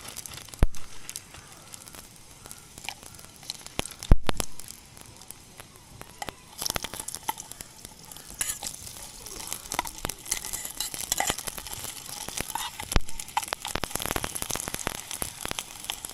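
Food sizzling and crackling in a pan, with sharp clicks and knocks from a utensil. The sizzle grows louder about six and a half seconds in.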